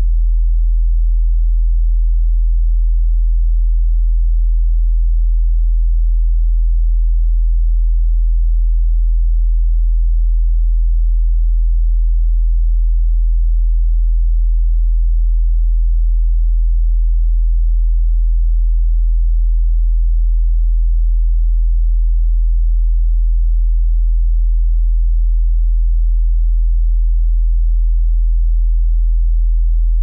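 A pure sine tone at about 41.2 Hz, the note E1: a single very low, steady hum that does not change.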